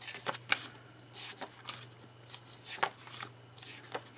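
Sticker sheets and planner pages being handled: several short, sharp taps with soft paper rustling between them.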